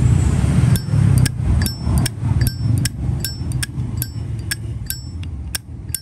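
A silver-plated Zippo lighter's lid being flicked open and snapped shut again and again, about three sharp metallic clinks a second with a short bright ring after each. The lighter is being tested for its characteristic clink, which sounds fine, on an unrepaired lighter.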